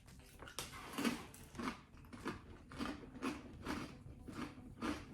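Chewing a crunchy baked rice cracker, a crisp crunch about twice a second.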